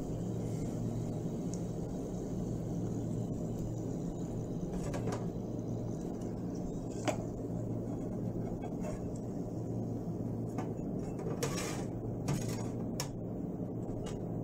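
Filled snack pastries deep-frying in oil: a steady low bubbling rumble with a hum, and a few light taps of a utensil, the sharpest about seven seconds in and several more near the end.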